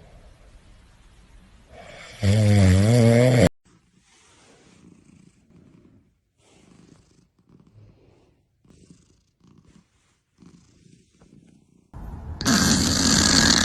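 Domestic cat sounds: a loud, drawn-out, wavering call about two seconds in that cuts off suddenly, then faint rhythmic breaths, one or two a second, then a loud harsh breathy sound near the end.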